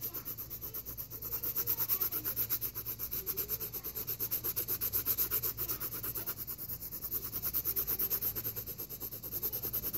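Colored pencil shading back and forth on sketchbook paper: a steady scratchy rubbing of quick, regular strokes, several a second.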